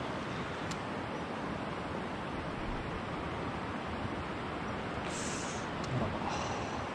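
Steady rush of flowing river water, with a few faint ticks and a brief higher hiss about five seconds in.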